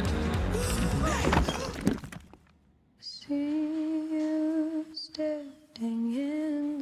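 Music ending with a crash cuts off about two seconds in. After a moment of silence, a voice hums a slow, wordless melody in long held notes.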